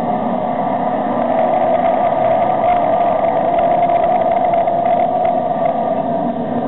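A field of short-track stock cars running together as a pack on the oval, their many engines blending into a steady drone that swells slightly a couple of seconds in.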